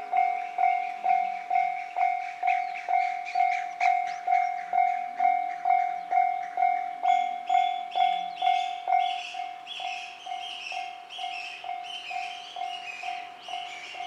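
Japanese level-crossing warning alarm sounding its repeating 'kan-kan' at about two strokes a second. From about seven seconds in a second, higher rhythmic sound joins it, and about nine seconds in the alarm's strokes grow weaker.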